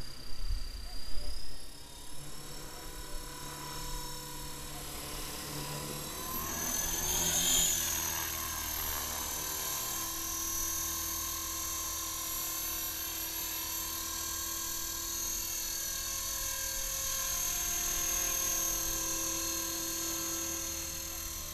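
HK-450 electric RC helicopter in flight: a steady high-pitched motor and gear whine with rotor hum, swelling about seven seconds in as it comes close. A few low thumps in the first two seconds.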